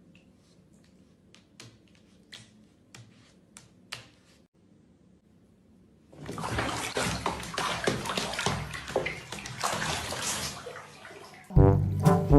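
Faint scattered clicks, then about six seconds in, water splashing loudly for about five seconds. Brass music starts near the end.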